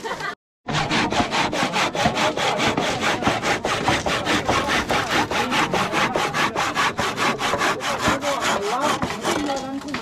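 Hand saw cutting across a timber beam in quick, even back-and-forth strokes, about three a second. The sawing starts about half a second in.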